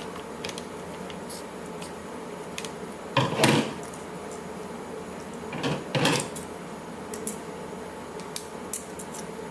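Scissors cutting through a plush toy's fur and fabric skin: scattered light clicks, with two louder, longer cuts about three and six seconds in.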